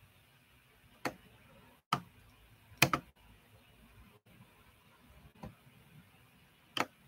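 A handful of short, sharp clicks at irregular intervals over faint room tone, the loudest a quick double click about three seconds in.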